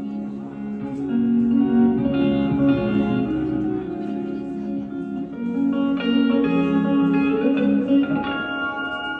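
Live guitar playing a picked instrumental passage of a folk song, with notes changing quickly and a chord ringing out near the end.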